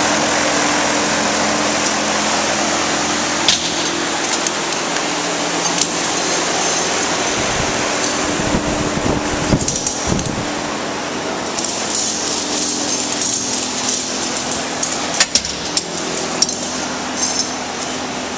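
Large drum-type dyno cooling fan blowing steadily with a low hum. Scattered sharp metallic clicks and clanks from tie-down ratchet straps being fitted to the car.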